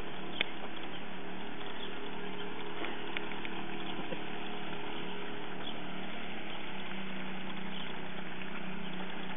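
Small boat's outboard motor running steadily, an even low hum, with one sharp click about half a second in.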